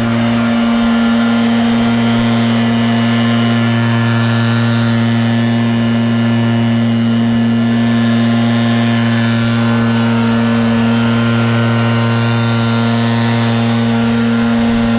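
RedMax EBZ8550 backpack leaf blower running steadily, its two-stroke engine holding one unchanging pitch with a rush of air from the tube as it blows leaves and mulch.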